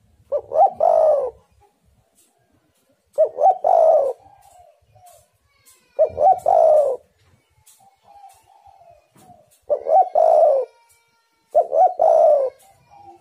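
Spotted dove (tekukur) cooing: five phrases, each a couple of quick notes followed by a longer rolling coo, repeated every two to four seconds.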